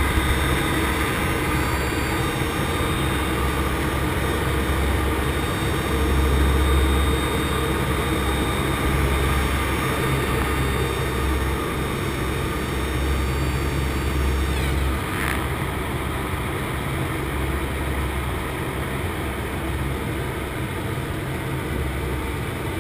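C-130 Hercules turboprop engines droning steadily with a deep hum, with rushing air noise, heard from inside the cargo hold with a door open.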